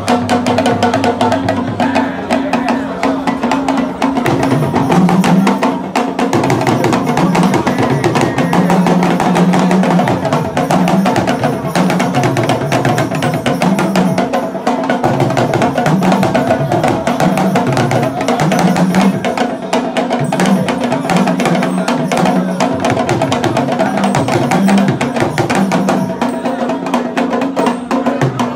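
Egun masquerade drumming from a live Beninese percussion ensemble: several hand drums and a sharp, wood-block-like clacking percussion in a fast, steady rhythm, with a lower pitched drum part that starts shifting in pitch about four seconds in.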